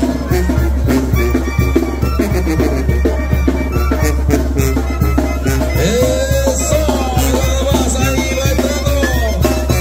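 Mexican banda music: a melody with sliding notes over a steady low bass line and drums.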